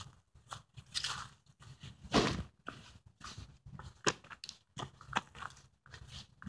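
Footsteps crunching over dry leaves and gravel, an uneven step about twice a second, with one louder crunch about two seconds in.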